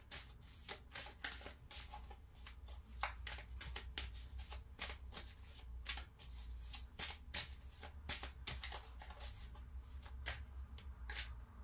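A deck of tarot cards being shuffled by hand: a rapid, uneven run of crisp card flicks and slaps.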